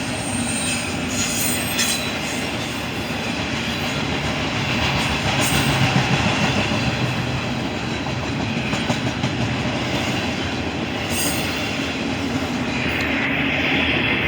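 Freight train cars rolling past on the rails in a steady rumble, with brief high wheel squeals a few times.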